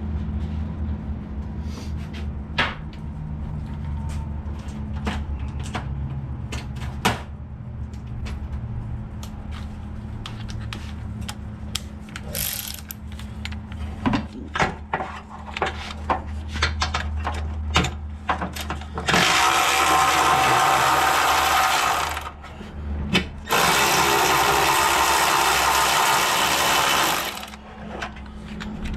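Scattered clicks and knocks over a steady low hum. A power tool then runs loudly twice, for about three seconds and then about four, near the end.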